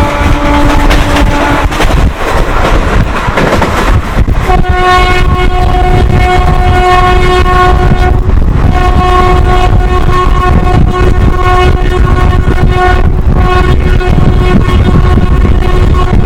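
WAP-4 electric locomotive's twin-tone horn sounding over the rumble of the train running at speed: a lower tone cuts off about 2 s in, then after a couple of seconds of running noise a long, higher-pitched blast starts, broken twice briefly, and carries on to the end.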